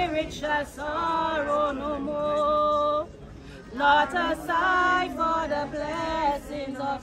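Mourners singing a hymn together with no instruments, held notes in a slow melody. The singing breaks off briefly about three seconds in, then resumes.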